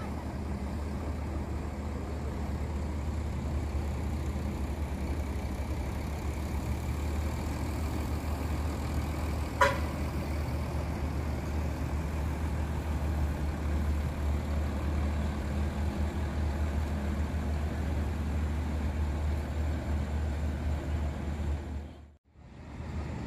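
Diesel engine of a departing intercity coach bus, a steady low rumble as it pulls away. About ten seconds in there is one short, sharp sound, and near the end the sound cuts out briefly.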